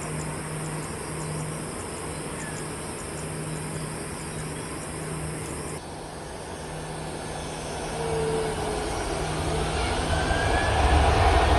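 Boeing 737-800's CFM56 jet engines running at low power, then after an abrupt change about halfway, spooling up to take-off power. The sound grows steadily louder over the last few seconds with a rising whine.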